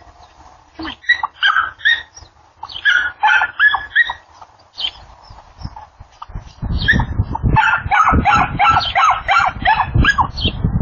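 Small dog yapping in short, high-pitched calls that come in bursts and turn rapid and continuous about two-thirds of the way in, over a low rumble.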